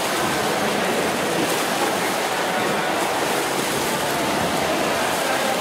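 Swimmers splashing through a butterfly race in an indoor pool hall: a steady wash of water noise with no separate strokes standing out.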